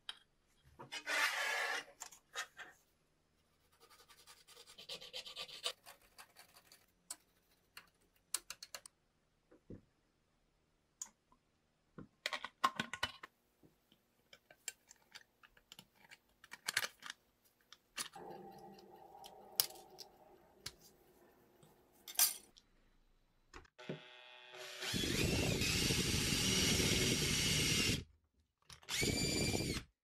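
Workshop handling and cutting of a thin metal plate: scattered clicks, taps and short scrapes, with snip cuts around the middle. Near the end an electric drill runs at speed for about three seconds, drilling a hole through the plate, then runs again briefly. The drill is the loudest sound.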